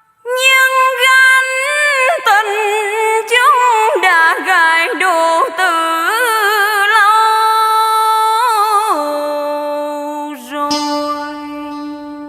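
Instrumental break in a Vietnamese song: a lead melody with pitch bends and vibrato, ending on long held notes.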